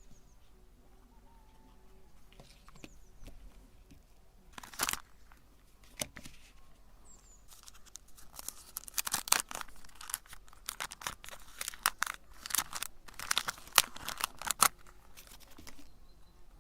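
Wrapper of a chocolate bar being torn and crinkled open. There is a short rip about five seconds in, then a dense run of irregular crackling and tearing for about seven seconds that stops abruptly near the end.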